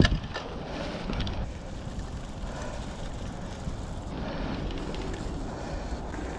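Mountain bike rolling down a dirt trail covered in dry leaves: a steady rush of tyre noise, with a loud knock right at the start and a few smaller rattles in the first second or so as the bike jolts over the rough ground.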